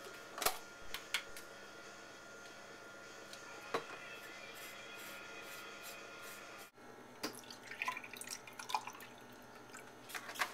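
Kitchen handling sounds: scattered clicks and taps of a knife and a plastic margarine tub as margarine is spread on a pancake, over a steady low hum. Near the end, a busier run of small splashing sounds as milk is poured into a glass.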